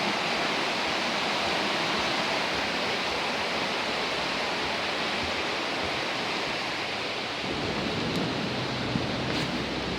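Floodwater of a swollen stream rushing in a steady roar. About three quarters of the way through, low wind rumble on the microphone joins in.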